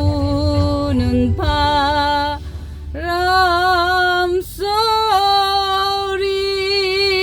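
A woman singing a Korean ballad over backing music, holding long notes with vibrato. After a few shorter notes she sustains one long note from about three seconds in, with a brief break for breath midway.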